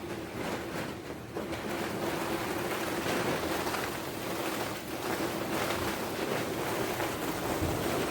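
Strong storm wind gusting, a rushing noise that swells and eases, with a faint steady hum underneath.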